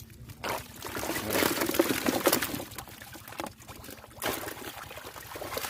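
Water splashing and pouring in uneven bursts, loudest from about half a second to three seconds in, with shorter splashes later.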